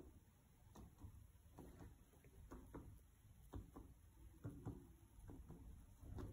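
Faint, soft fingertip taps, mostly in close pairs about once a second: direct percussion of a newborn's lungs, the fingers struck straight onto the chest.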